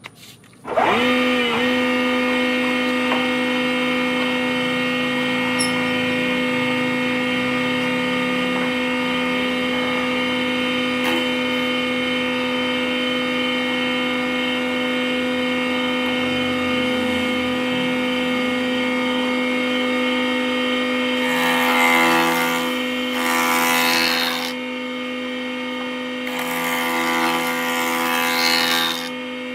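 A 3-in-1 woodworking machine switching on and spinning up within a second, then running with a steady pitched hum. About 21 and 26 seconds in come two louder, harsher stretches of a few seconds each as it cuts wood.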